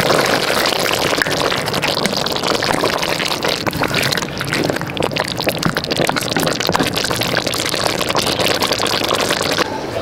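Beef and spices sizzling and bubbling in a pot while a ladle stirs them, a dense crackle of fine pops. It stops abruptly near the end.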